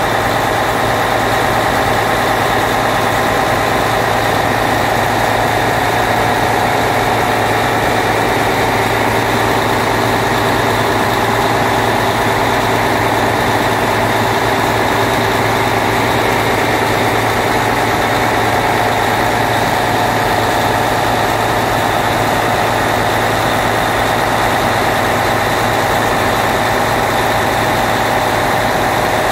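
Turbocharged engine idling steadily, with the turbo flutter that is taken as a sign the turbo needs servicing.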